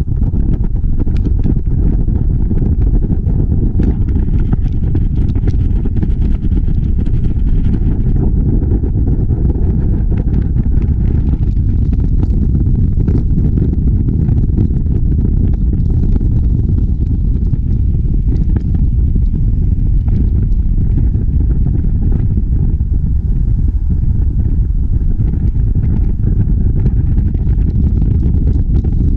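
Wind buffeting a microphone held out of a moving car's open window, over steady tyre and road noise: a loud, even low rumble with no change throughout.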